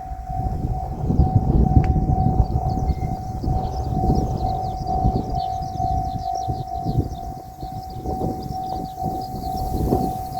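Railroad crossing warning bell ringing in a steady, evenly repeating tone while a JR Shikoku 8000 series electric express train runs past, its wheels rumbling over the rails, loudest about a second in.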